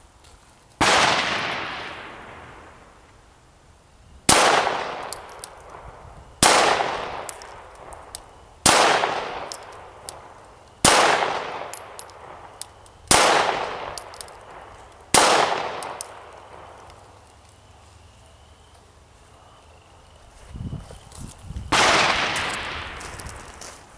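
Glock 17 9mm pistol firing seven single shots about two seconds apart, each with a long echo trailing off. A rush of noise follows near the end.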